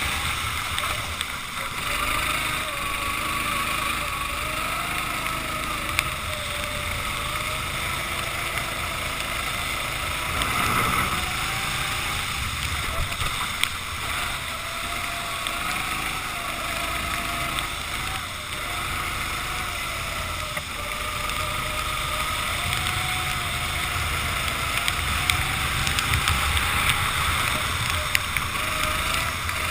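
Racing kart engine revving up and down in repeated swells as the kart brakes and accelerates through corners on a wet track, over a steady rushing noise.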